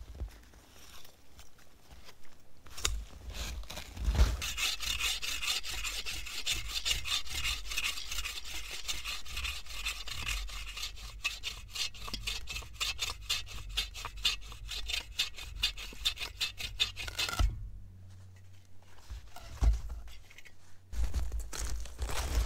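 Agawa Boreal 21-inch bow saw cutting through a dry, dead log in quick, even back-and-forth strokes. The sawing starts about four seconds in, runs for about thirteen seconds and stops, followed by a few dull knocks.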